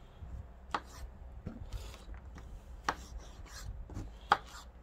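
Pocket knife slicing through mushrooms and knocking on a wooden cutting board: a few sharp knocks with soft cutting in between, the loudest near the end.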